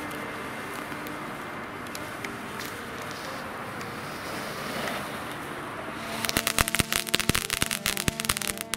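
Weco firework ground fountain hissing steadily as it sprays sparks. From about six seconds in, a rapid run of loud, sharp crackles joins the hiss.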